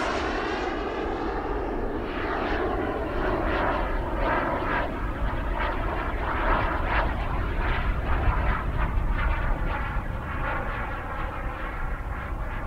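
Model gas-turbine engine of a CARF Mephisto RC jet in flight, a steady rushing whine that dulls over the first couple of seconds as the jet draws away, then wavers in level, over a low rumble.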